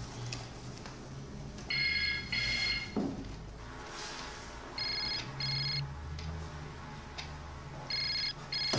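Telephone ringing with a double ring: pairs of short electronic trills, three pairs about three seconds apart.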